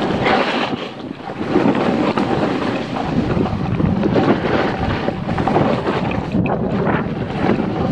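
Wind buffeting the microphone over a snowboard sliding and scraping across packed snow during a run, the noise swelling and easing in waves.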